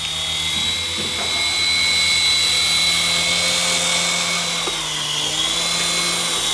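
Syma S109G coaxial toy RC helicopter in flight, its small electric motors whining steadily with the rotor blades whirring. The pitch sags briefly about five seconds in as the throttle changes, then comes back up.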